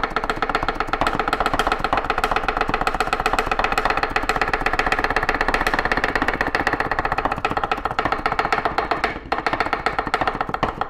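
Chef's knife rapidly chopping fresh parsley on a wooden butcher-block cutting board: fast, even knife strikes on the wood, with a brief pause after about nine seconds.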